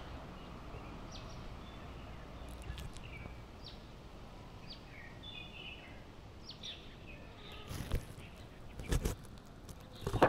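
Small birds chirping in short, scattered calls over a steady outdoor rustle of wind through trees. Near the end, a few thumps close to the microphone as a cat steps up to it.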